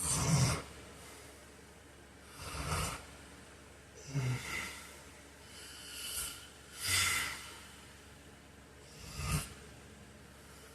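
A sleeping man snoring: short, noisy snoring breaths come about every two seconds, each lasting about half a second.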